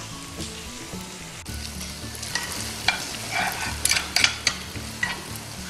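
Kimchi fried rice sizzling on a hot stone griddle while two metal spoons stir it and scrape across the stone. A cluster of scraping clicks comes in the middle.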